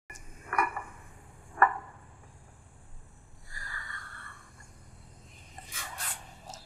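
Ceramic teacup and teapot clinking sharply twice, with a short ring, then sips of tea from the cup.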